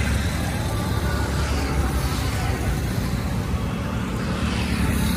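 Steady road traffic noise: a continuous low rumble of passing engines and tyres.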